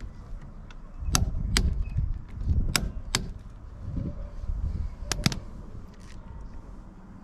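Tools working on a bicycle crank bolt: about six sharp clicks and knocks, spread irregularly over a few seconds, with low handling rumble between them.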